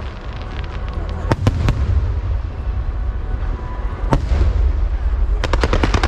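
Aerial fireworks shells bursting: a few separate bangs, then a rapid string of crackling pops near the end, over a steady low rumble.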